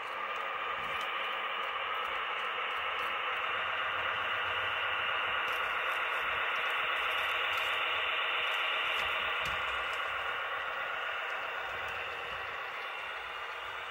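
Model railroad locomotives running on the layout: a steady hissing rumble with a faint whine, swelling in the middle and easing off near the end.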